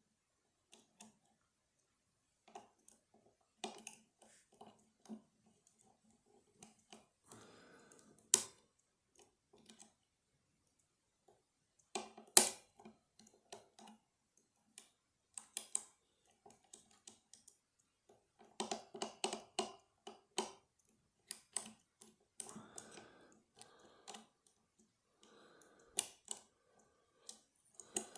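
Small metallic clicks and light scrapes of a lock pick working the levers inside a lever lock, coming in irregular bunches, with two much louder, sharper clicks partway through.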